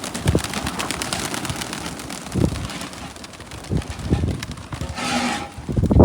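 Pigeons cooing a few times in short low calls over strong wind noise on the microphone.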